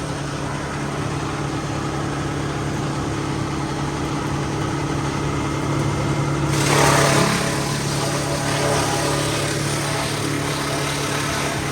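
Heavy tree-work machine engine running steadily with a constant low hum. About six and a half seconds in, a rush of noise comes in, loudest for about a second, and it stays fuller after that.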